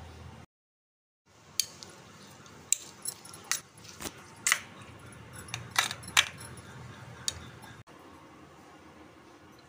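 A metal spoon clinking against a stainless steel bowl while beating raw eggs with chopped vegetables. The clinks are sharp and come at irregular intervals for several seconds.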